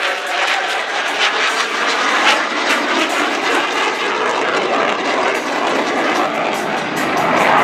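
Jet noise from a USAF F-16 Fighting Falcon's single afterburning turbofan during an aerobatic pass: a loud, steady rushing noise with no breaks.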